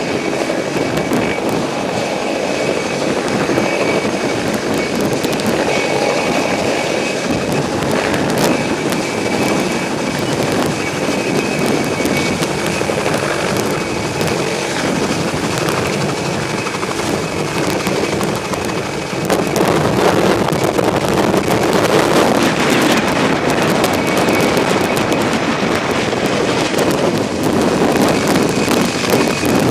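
Light twin-turbine helicopter, a Mi-2, flying low and hovering: steady rotor and turbine noise with a faint high whine, mixed with wind buffeting the microphone and choppy water. It gets louder a little after halfway.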